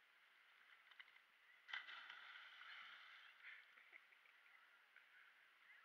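A person jumping feet-first or diving into a pool: a sudden faint splash a little under two seconds in, followed by a second or two of churning water as he surfaces and swims.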